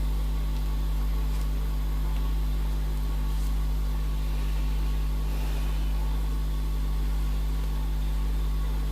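Steady low hum with a faint even hiss, unchanging throughout.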